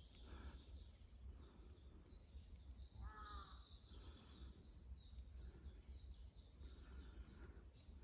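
Faint woodland ambience: a crow caws once, briefly, about three seconds in, over a run of thin high chirps and a low steady rumble.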